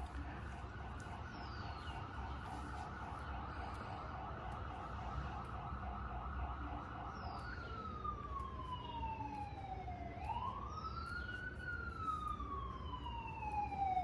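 Emergency vehicle siren sounding in a fast warbling yelp, then switching about seven seconds in to a slow wail that falls and rises.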